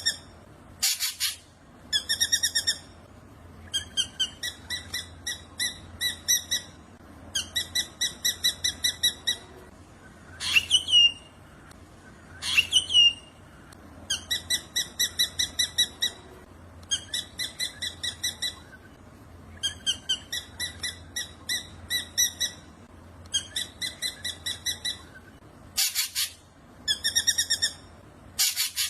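Black drongo singing: about one-second phrases of rapid, evenly repeated notes, given again and again with short gaps. Two loud falling whistles come about ten and twelve seconds in. Harsh, loud short calls come near the start and near the end.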